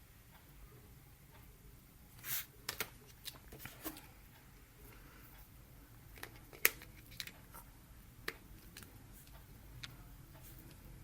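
A smartphone and its packaging being handled by hand: a brief rustle, then a scattered series of small plastic clicks and taps, the sharpest about two-thirds of the way through.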